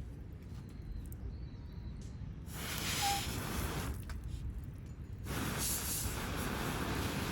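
Wood fire burning in a portable fire pit, with a few faint crackles and wind rumbling on the microphone. Two long rushes of hissing noise come about two and a half seconds in and again about five seconds in, as gusts come through.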